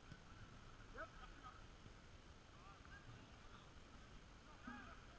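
Near silence: faint outdoor ambience with a few distant, faint calls about a second in, near the middle and near the end.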